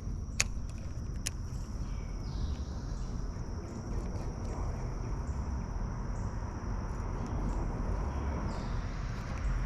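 Outdoor ambience: a steady high insect drone over a low rumble, with two sharp clicks in the first second and a half.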